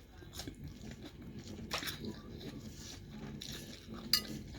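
A person chewing and crunching a mouthful of salad, with two sharper crunches, one about two seconds in and one near the end.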